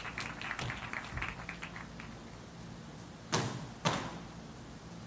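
Dancers' footsteps tapping and shuffling on a wooden stage, quick and fading out over the first couple of seconds. Then two sharp percussive strikes about half a second apart.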